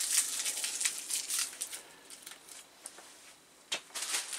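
Clear plastic bag crinkling and rustling as it is pulled off a computer tower case, busiest in the first couple of seconds and quieter in the middle, with a sharp click a little before the end.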